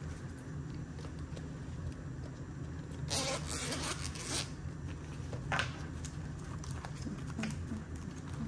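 Paper banknotes being handled and slid into a cash envelope: short rustling, scraping sounds, the longest lasting about a second a little after three seconds in and a shorter one near six seconds, over a steady low hum.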